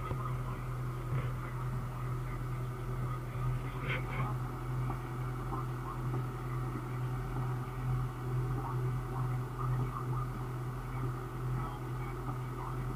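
Cat D5 dozer's diesel engine running with a steady low hum, heard from inside the operator's cab.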